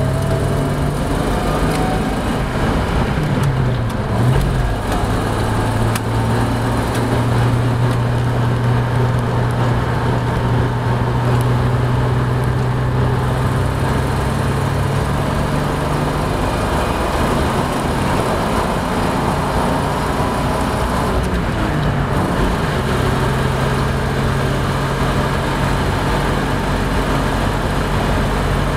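Cab interior of a 1987 Toyota FJ60 Land Cruiser on the move: its 4.2-litre inline-six engine drones in a tractor-like way over steady tyre and road noise. The engine note dips and comes back up a few times as the speed changes.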